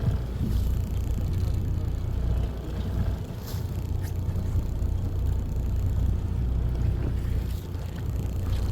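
Fishing boat's engine running with a steady low rumble, with a few faint clicks over it.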